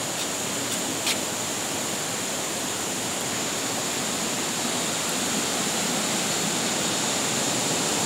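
Rushing water of a rocky forest stream, a steady rush that grows a little louder toward the end. A single light knock about a second in.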